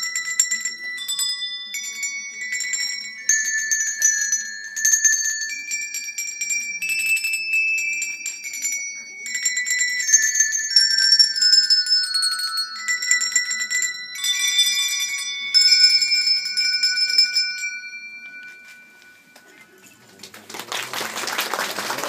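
A melody played on handbells, one clear ringing note after another, dying away about eighteen seconds in. Applause starts about two seconds later.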